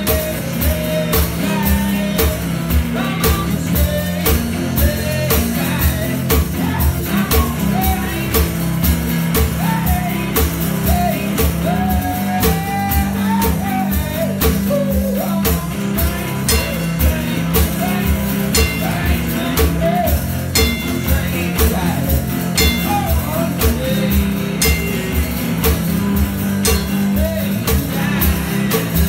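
One-man-band live performance: a man singing while strumming a guitar over a steady kick-drum and cymbal beat that he plays himself.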